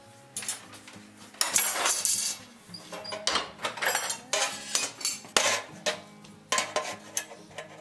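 Steel flat bar being cut and handled on a hand-lever bar shear: a string of irregular sharp metal clanks and clacks, some ringing briefly. Background music plays underneath.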